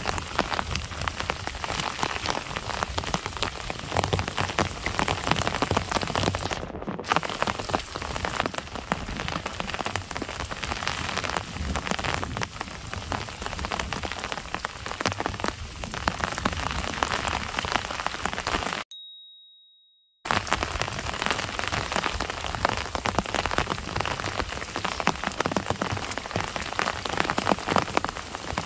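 Heavy monsoon downpour: a dense, steady rush of rain hitting wet ground, full of fine drop ticks. It cuts out for about a second about two-thirds of the way through, then resumes.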